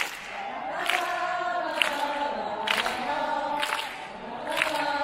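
Football supporters' chant: a large crowd singing together in unison, punctuated by a sharp beat about once a second.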